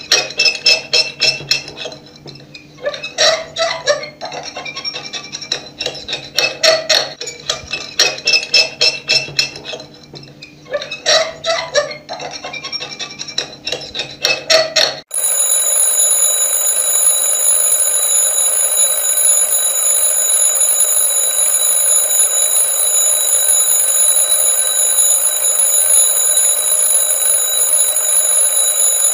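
A fork scraped over and over across a plate, in groups of short squeaky strokes, for about fifteen seconds. Then a mechanical twin-bell alarm clock starts ringing suddenly and rings on steadily.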